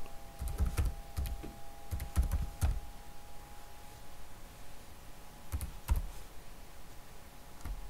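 Computer keyboard typing: a quick run of keystrokes in the first few seconds, then a couple of single key presses about six seconds in and one near the end, over a faint steady hum.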